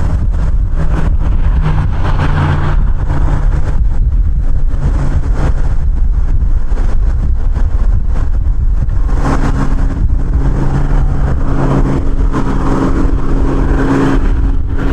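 Strong gusting wind buffeting the microphone: a loud, continuous rumble. A steady engine hum comes through the wind, most clearly in the second half.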